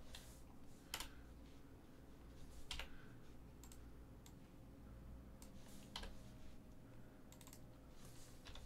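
Faint, irregular keystrokes on a computer keyboard, a few sharp clicks spaced a second or more apart, over a low steady hum.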